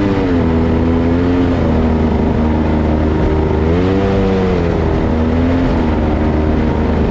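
Go-kart engine running hard through a lap, heard up close. Its pitch swells up and falls back twice, once right at the start and again around four seconds in, as the kart accelerates and lifts through corners, over a steady low rumble.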